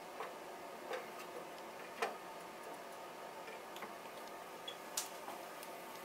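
Sugar syrup starting to simmer in a stainless steel pot on a stove and stirred with a wooden spatula: a soft steady hiss with scattered light ticks and clicks, two of them sharper about two and five seconds in.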